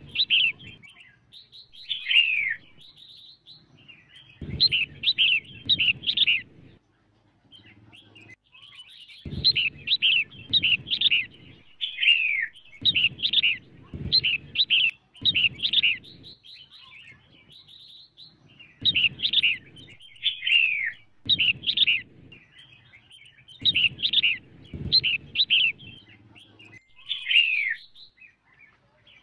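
Female red-whiskered bulbul calling, the kind of recording played to excite male bulbuls: clusters of quick, bright chirps mixed with downward-sliding whistles, each phrase lasting one to three seconds. There are short gaps between phrases and two longer pauses, about a third and two-thirds of the way through.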